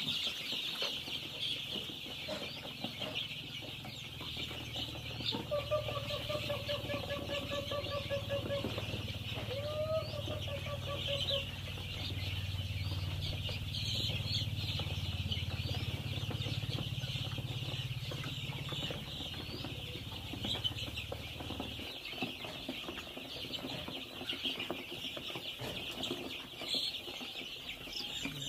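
Massed peeping of hundreds of young chicks: a dense, continuous chorus of short, high cheeps. A low hum runs under it until about three-quarters of the way through.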